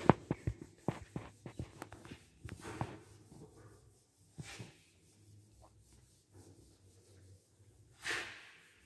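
Whiteboard eraser wiping the board: a quick run of short rubbing strokes in the first three seconds, then a single stroke midway and one longer swipe near the end.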